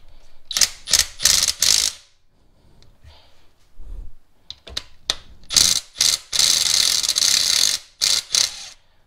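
Cordless electric ratchet loosening the rocker shaft bolts, running in short bursts. There are a few quick runs in the first two seconds, then a longer run of about two seconds in the second half.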